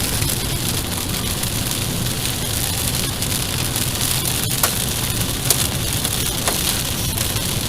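Heavy thunderstorm rain pouring down in a dense, steady hiss, with three sharp ticks of something striking in the second half.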